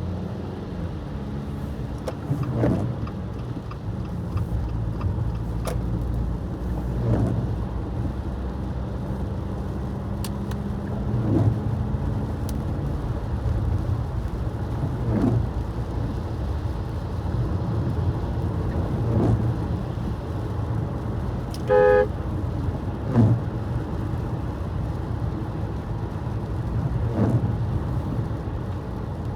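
A car driving on wet road: a steady low rumble of road and engine noise, with a soft sweep about every four seconds, which is typical of windshield wipers. A brief car horn toot comes about three-quarters of the way through.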